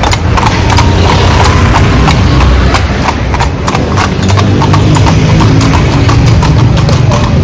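A pair of carriage horses' hooves clip-clopping on a paved street, a brisk even beat of about four strikes a second, over a steady low rumble.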